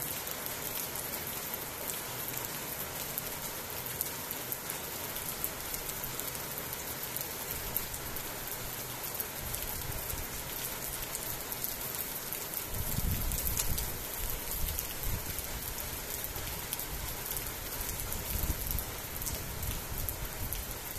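Heavy rain falling steadily, an even hiss throughout. A gusty low rumble joins a little past halfway through.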